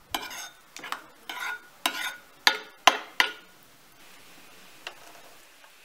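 A metal spoon stirring a thick tomato and pepper-paste sauce in a ceramic bowl, with wet scraping strokes and sharp clicks of the spoon against the bowl. The strokes are loudest for the first three seconds or so, then fade to a faint stirring.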